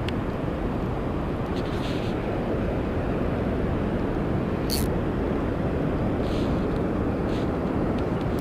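Steady wind rumble on the microphone, with a few faint light clicks about two, five, six and seven seconds in.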